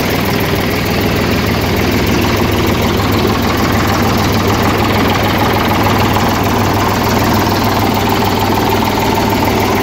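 Eicher 485 HD tractor's three-cylinder diesel engine running steadily at a constant speed.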